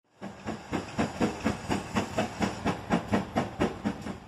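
Steam locomotive working under steam, its exhaust chuffing in a steady, even beat of about four chuffs a second. The sound fades in at the start.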